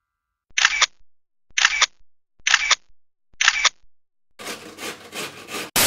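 Grating on a metal box grater: four slow rasping strokes, about one a second, then a quicker run of scraping. A short, loud burst of noise comes near the end.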